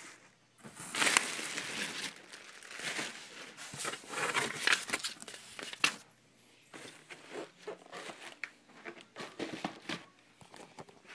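Paper crinkling and rustling as a shoebox is unpacked by hand: a long run of dense crinkling, then shorter, scattered rustles and handling noises in the second half.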